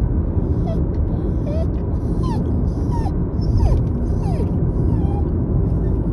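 Patterdale terrier whining in short, high cries, about eight of them, some sliding down in pitch, from excitement at riding in the car. A steady low road rumble from the moving car runs underneath.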